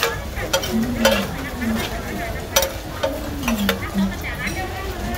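Two metal spatulas scraping and clacking on a large flat steel frying pan as pad thai noodles are tossed and stir-fried, over a steady sizzle. Several sharp scrapes stand out.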